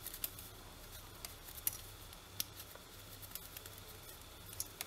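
Faint, irregular light clicks of 3.25 mm knitting needles tapping together as stitches are knitted, about seven or eight over a few seconds.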